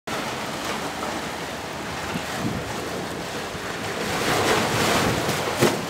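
Ocean surf breaking and washing among rocks, a steady rush that swells about four seconds in, with a sharp splash of a wave against a rock near the end.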